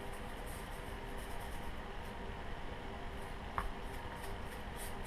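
Faint, rhythmic back-and-forth scrubbing strokes on a carbon-fouled AR-15 bolt, pausing midway, with a single small click about three and a half seconds in.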